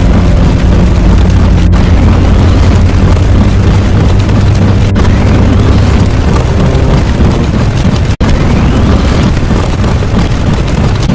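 Loud, dense layered sound effects with a heavy explosion-like boom, restarting with a brief cut about every three seconds.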